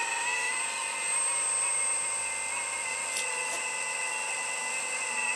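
Earth Digger 4200 XL RC excavator's hydraulic pump running with a steady high whine.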